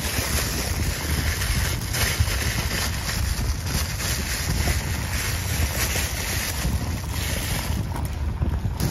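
Wind buffeting the microphone: a steady low rumble with a hiss above it, the hiss easing near the end.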